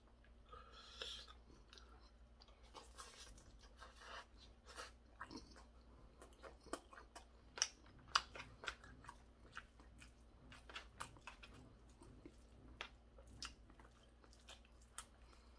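Faint chewing of stir-fried pork cartilage, with many short, sharp crunches at an uneven pace as the gristle is bitten through.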